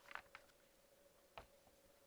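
Faint crackles of glossy magazine paper being handled as the pages are leafed through: a few quick crisp rustles at the start and one sharper paper tick a little past halfway.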